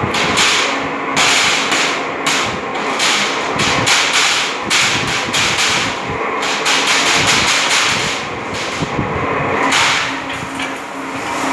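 Aluminium grill-making machine running as a flat aluminium strip is fed through its rollers, clattering with uneven, rapid metallic knocks over a faint steady hum.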